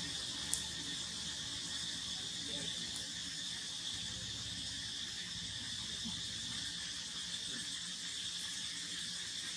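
Steady chorus of insects, a continuous high-pitched buzz that doesn't change, with one short click about half a second in.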